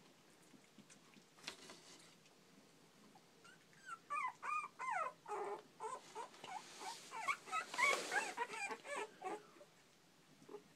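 Two-week-old pit bull puppies whimpering in a quick run of short, high cries that start about four seconds in and stop near the end, with some rustling among them.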